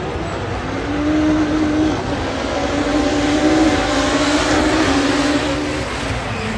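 A pack of rallycross cars racing along the circuit, engines held at high revs in a loud, steady drone with small shifts in pitch.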